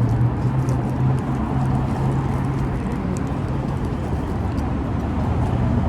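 City street traffic noise: a steady low engine hum over a general haze, with a few faint small clicks.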